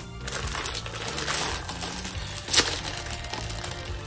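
Plastic packaging bags crinkling and rustling as they are opened and handled, with one sharper crackle about two and a half seconds in, over steady background music.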